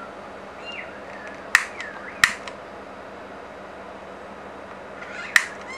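A lighter being struck three times: sharp clicks about a second and a half in, again a moment later, and near the end.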